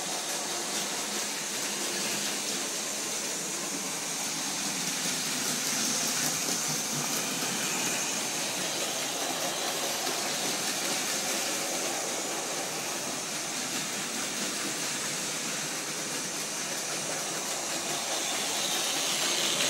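Several Plarail battery-powered toy trains running on plastic track: a steady whir of small motors and gears with wheel rattle, a little louder about six seconds in and near the end as the trains pass close.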